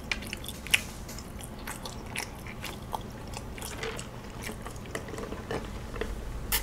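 Close-miked chewing of a mouthful of kaya toast: soft crunches and wet mouth clicks, with a sharper click about three-quarters of a second in and another near the end.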